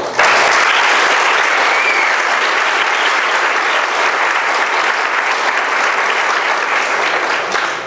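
Audience in a crowded meeting room applauding loudly, starting abruptly and ending just before the speech resumes.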